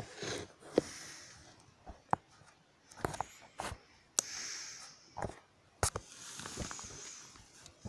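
Breathing close to the microphone, with sharp clicks and soft rustles from the handheld camera being moved over the book pages.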